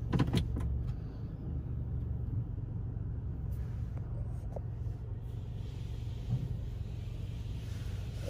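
Laserwash G5 touchless car wash running, heard from inside the car's cabin: a steady low rumble, with a faint hiss building about five seconds in.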